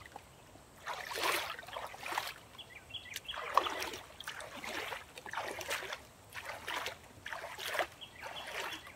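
Hands paddling pond water beside a floating wheelbarrow tray, a splashing stroke about once a second.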